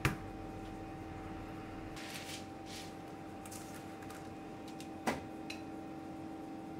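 Kitchen handling sounds at a stainless-steel counter: a sharp knock at the very start, soft rustling as parchment paper is laid onto a metal sheet pan, and another sharp knock about five seconds in, over a steady hum.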